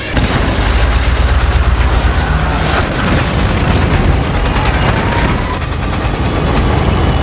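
Film sound design of giant tracked mobile cities on the move: a deep, continuous mechanical rumble with a few sharp bangs along the way.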